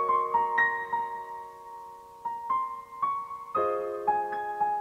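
Slow, gentle piano music: single melody notes over held chords, with a fresh chord struck about three and a half seconds in.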